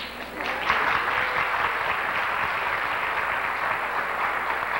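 Audience applauding, a dense steady clatter of many hands that swells in just after a brief knock at the start and keeps going.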